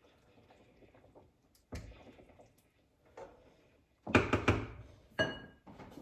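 Kitchen clatter: a dull thunk, then a quick run of sharp knocks of utensils against cookware, and a metal clink that rings briefly near the end.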